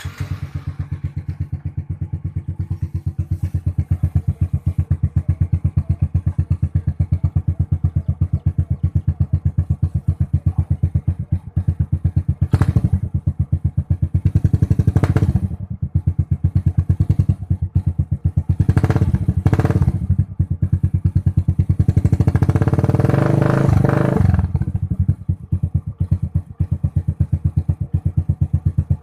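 Suzuki Smash 115 underbone motorcycle's single-cylinder four-stroke engine, breathing through an aftermarket HGM exhaust pipe, idling with an even exhaust beat. It is blipped four times, the last rev held for about two seconds before it drops back to idle.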